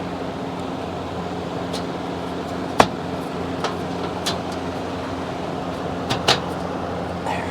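Electric fan running: a steady motor hum and rush of air, with a few sharp clicks around the middle.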